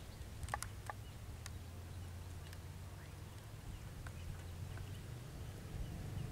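A man wading waist-deep in a river among water hyacinth: a few sharp little splashes and clicks in the first second and a half, fainter ones after, over a steady low rumble.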